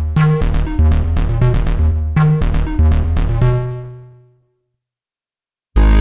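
Sunbox software synthesizer (sampled SunSyn) playing its 'Electro House' bass preset: a punchy, rhythmic sequenced bass line that stops about three and a half seconds in and rings out. After a second or so of silence, a new sustained low synth bass tone (the 'J Low' preset) comes in near the end.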